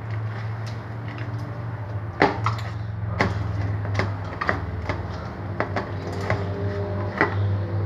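Sticky glue slime being kneaded and pulled by hand, giving irregular wet clicks and snaps as it peels off the hands and bowl while it sets with the boric acid and baking soda activator. A steady low hum runs underneath.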